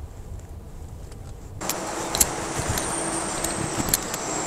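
Car and traffic noise: a low rumble, then about one and a half seconds in a sudden jump to a louder steady rush with a low hum and a faint high whine.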